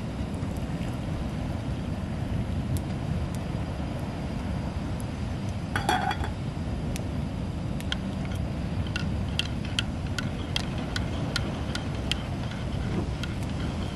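A spoon clinking against a ceramic mug while coffee is stirred, a few ringing clinks a second from about 8 s in, over a steady low rumble of surf. About 6 s in there is a short clatter as the cooking pot is set back on the camp stove.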